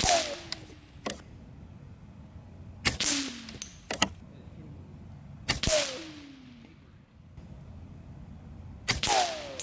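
.30 caliber PCP air rifle shots whose slugs hit coins and ricochet off them: four sharp cracks about three seconds apart. Each crack is followed by a short whine falling in pitch, the ricochet 'cowboy sound' of a slug glancing off a coin.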